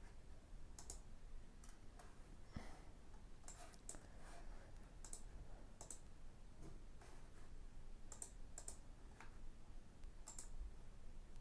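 Computer mouse clicking: about eight sharp single clicks at irregular intervals, over faint room hum.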